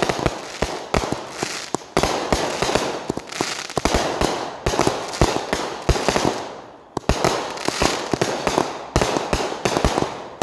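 An aerial fireworks cake firing a run of shots: sharp bangs a few per second, with crackling star bursts between them and short lulls.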